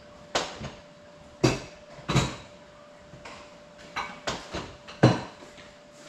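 Someone rummaging at a drawer cabinet: a run of about six sharp knocks and clatters, spaced irregularly, over a faint steady whine.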